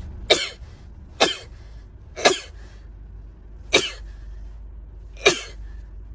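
A young woman's fit of five short, sharp explosive bursts through nose and mouth, one every second or so, each cut off quickly.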